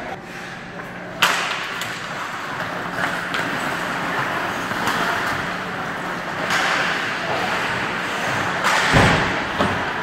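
Ice hockey game in play in a rink: a sharp crack about a second in and a heavier thud near the end, over a steady wash of rink noise with a low hum.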